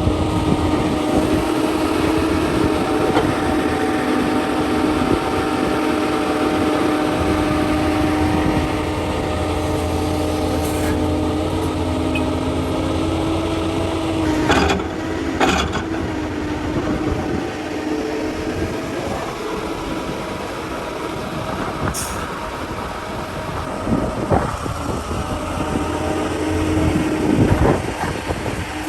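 Heavy diesel earthmoving machinery, excavators and dump trucks, running steadily with the engines' hum changing pitch partway through. A few sharp clanks come around the middle, with another about three quarters of the way in and a cluster of knocks near the end.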